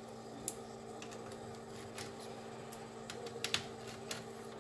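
A few sharp small clicks and taps of metal and plastic as hinges are worked out of a laptop's display housing, most of them about three and a half seconds in. A faint steady hum runs underneath.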